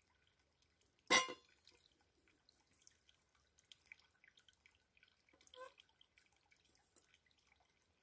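A sharp knock about a second in, then a fainter metallic clink about five and a half seconds in, as a Snow Peak kettle is handled and set down on a small folding fuel-tab stove.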